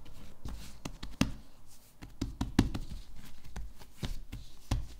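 Hands turning and patting a ball of soft bread dough on a silicone baking mat while dusting it with flour: an irregular run of soft taps and dull pats, a few of them louder, the loudest near the end.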